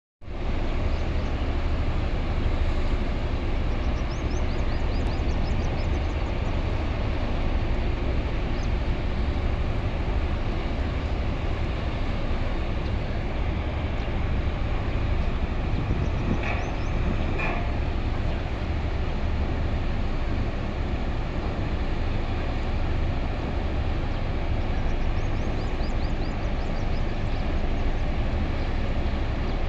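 Workover drilling rig machinery running steadily with a deep, continuous rumble. Brief high squeaks come through a few times.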